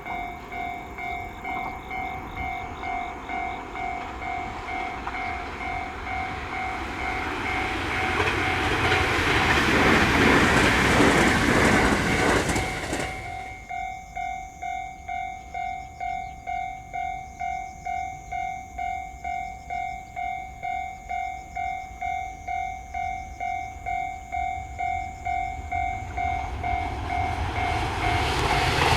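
Japanese level-crossing alarm ringing its electronic clang about twice a second, while a train on the JR Hokuriku Main Line passes the crossing. The train's noise builds to a peak and cuts off suddenly about halfway through, with the alarm ringing on, and a second train's noise starts to build near the end.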